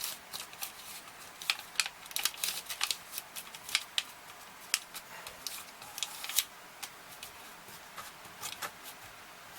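Paper crinkling and rustling in irregular short crackles as a small sheet is pressed and creased around the edge of a knife handle scale blank to make a template.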